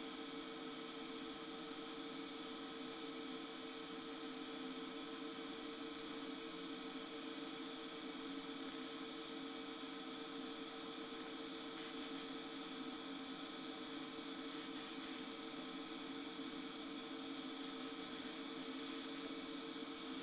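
TIG welding setup running while titanium plate is welded: a steady electrical hum with a hiss that holds even throughout.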